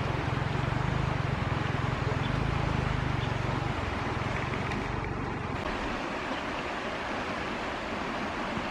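Steady rushing of a flowing river, with a low rumble in the first half that drops away about five and a half seconds in.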